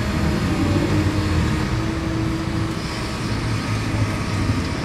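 Diesel engine of a JCB backhoe loader running steadily, with a steady tone over it that stops about halfway through.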